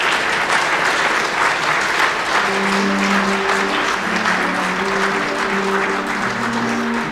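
Audience applauding steadily. About two and a half seconds in, held low instrumental notes begin under the clapping.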